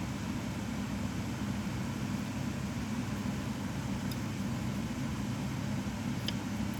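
A steady low mechanical hum of background machinery, with two faint clicks about four seconds and about six seconds in.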